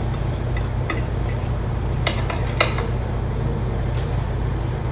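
Crunchy tortilla chip being bitten and chewed close to the microphone: a few sharp, irregular crunches over a steady low hum.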